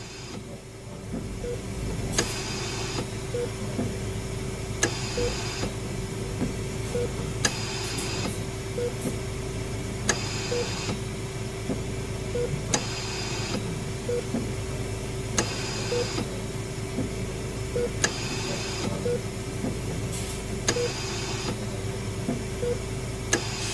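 Hospital-themed horror ambience: a steady hum under faint short beeps about every two seconds, a hiss about a second long every few seconds, and occasional sharp clicks.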